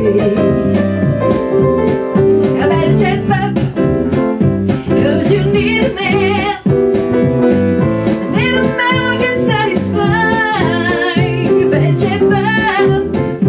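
A woman singing into a microphone, with vibrato on held notes, backed by an electric bass guitar and an upright piano in a swing arrangement.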